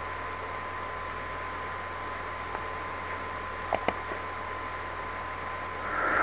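Steady hiss from a desk microphone with a faint steady whine, broken by two quick sharp clicks a moment apart near the middle.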